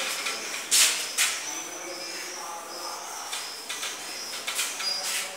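Whiteboard eraser rubbing across a whiteboard in short, scrubbing strokes: two strong swishes about a second in, then softer, quicker ones near the end.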